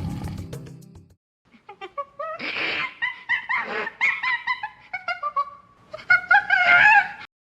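A series of short, high, chirping and squeaking animal calls, each gliding in pitch, ending in a louder cluster of calls near the end. The tail of a lower, rougher animal sound fades out in the first second.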